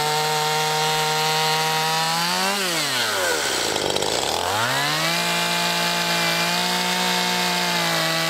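Stihl MS 171 two-stroke chainsaw cutting through a felled log at high revs. About two and a half seconds in, the engine note rises briefly, then falls away to a low note and climbs back, settling to a steady cutting speed about five seconds in.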